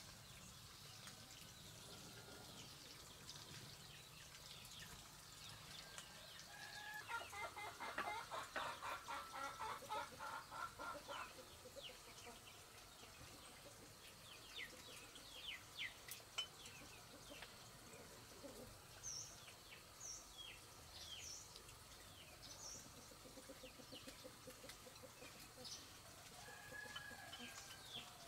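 Chickens clucking faintly, with a rapid run of loud clucks about a quarter of the way in, followed by scattered short, high chirps.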